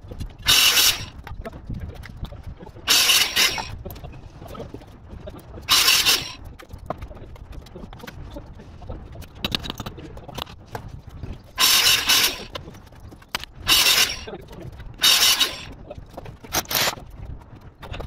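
Seven short, harsh scraping sounds at irregular gaps, each about half a second long.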